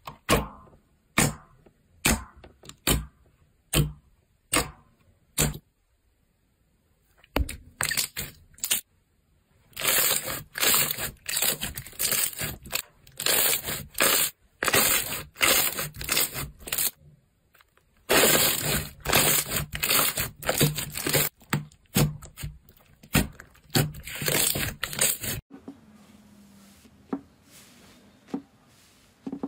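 Hands pressing and kneading glossy blue slime: sharp wet pops and clicks, roughly one or two a second at first, then dense crackling squelches as it is folded and squeezed. About four seconds before the end the sound drops to quieter handling of another slime.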